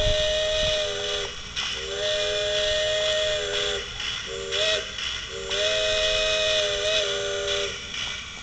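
Garden-scale model locomotive sounding a chord whistle of several tones at once: two long blasts, a short one and a final long one, the grade-crossing signal, over a steady hiss.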